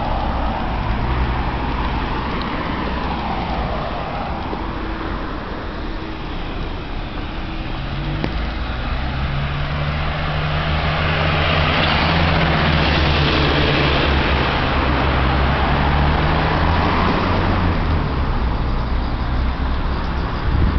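Street traffic on a city road: vehicle engines and tyres running steadily. About halfway through, a vehicle with a low engine hum passes, and the sound swells to its loudest before it eases off.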